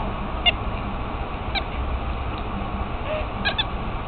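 A few short, high chirps from an animal, two of them close together near the end, over a steady low rumble.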